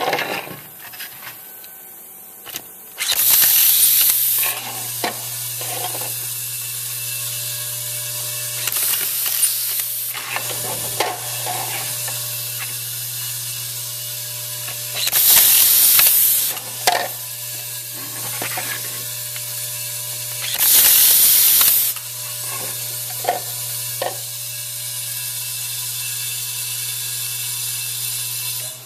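Automatic screw feeder working with an electric inline screwdriver: a steady low hum from the feeder unit, three loud bursts of air hiss as screws are blown down the clear feed tube, and shorter whirs and clicks of the screwdriver driving screws into a plastic part.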